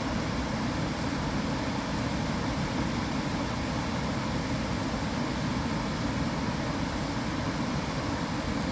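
Continuous white-noise sleep sound: an even, unbroken rush that is heaviest in the low range, like a steady rumble under a softer hiss.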